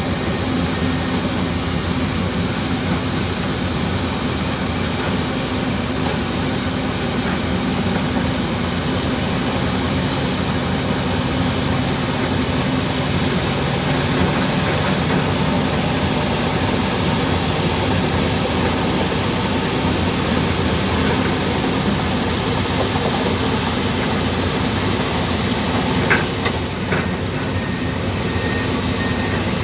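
Komatsu D65 bulldozer's diesel engine running steadily while the dozer works, with a couple of short knocks near the end.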